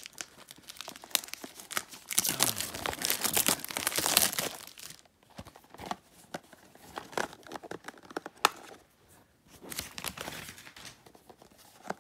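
Clear plastic wrapper being peeled and crinkled off a small cardboard figure box, densest as a long crackling stretch from about two to five seconds in, then scattered lighter rustles and clicks as the box is handled.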